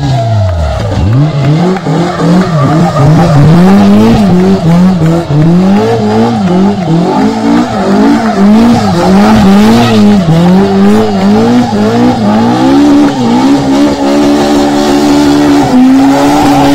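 Rally car's engine revving up and down over and over as it spins donuts, tyres squealing on the asphalt. The revs fall sharply about a second in, then swing rapidly, and near the end are held steady at a higher pitch.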